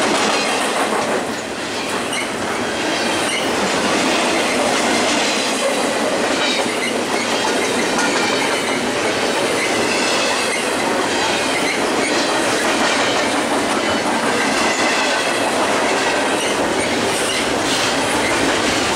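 Double-stack container cars of a freight train rolling past: a steady rumble of steel wheels on rail with clacking and short, high wheel squeals.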